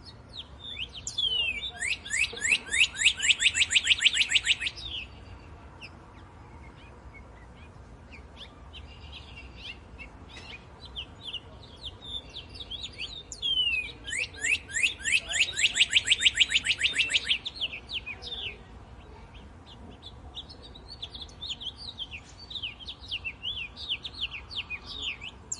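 Songbirds chirping, with two loud, fast trills of rapidly repeated downward-sliding notes, each about three seconds long, one a couple of seconds in and one about halfway through; shorter scattered chirps fill the gaps.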